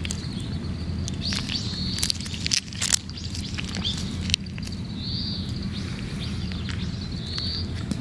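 A cat eating close by from a metal bowl: wet chewing and licking with sharp clicks, busiest a couple of seconds in. A few short, high bird chirps sound behind it over a steady low background rumble.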